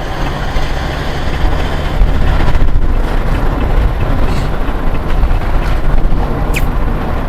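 Vehicle running on the road, engine and road noise heard from inside the cab, growing louder about two seconds in.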